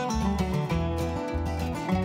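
Country-style background music of plucked string instruments over a moving bass line.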